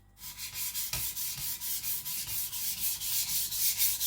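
Thin Chinese cleaver blade being rubbed back and forth on a whetstone at a low angle with light pressure, starting about a quarter second in and going on in quick, even strokes, about three a second.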